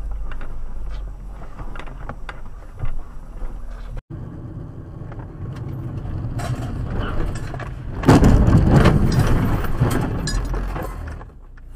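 Car driving with engine and road noise. From about two-thirds of the way in there is a loud rough rushing noise for about three seconds while the car brakes hard, its speed falling.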